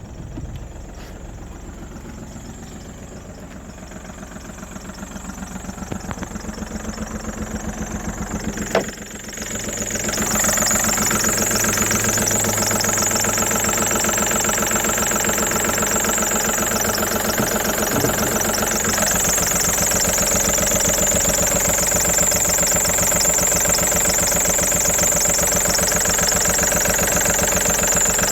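VW Polo 1.4 TDI three-cylinder diesel engine idling with a fast, even clatter, the engine noise the owner is showing as a fault. About nine seconds in there is a sharp knock, and from about ten seconds the clatter is much louder and brighter, with a strong high hiss.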